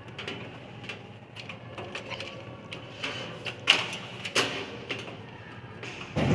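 Scattered clicks and knocks of computer hardware being handled and fitted in a desktop case, with two sharper clicks around the middle and a heavier thump at the end.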